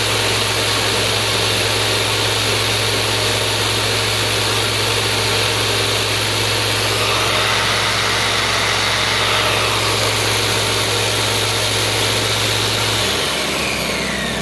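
Harbor Freight Tailgator two-stroke portable generator running steadily under the load of a corded jigsaw whose motor whines alongside it; the small generator is near its limit. Near the end the jigsaw is switched off: the steady hum drops away and its motor whine falls in pitch.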